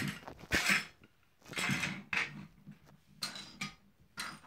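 Handling noise of a phone held in the hand: several short bursts of rustling and clattering about a second apart, with a sharp knock about half a second in.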